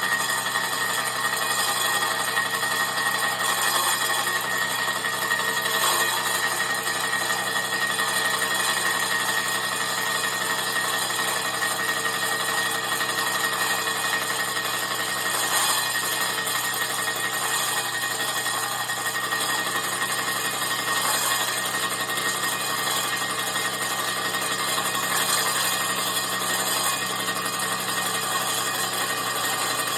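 Machine running a slitting saw blade through an intercooler: a steady cutting noise with a constant high-pitched whine.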